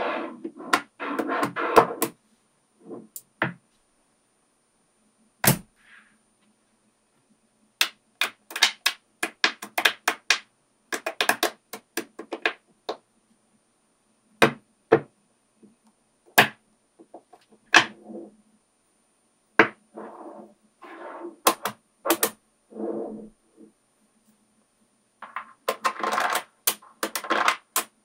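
Small magnetic balls clicking and clattering as they are handled, snapped together and reshaped by hand. The sound comes as single sharp clicks and quick runs of clicks, with fully silent gaps between them.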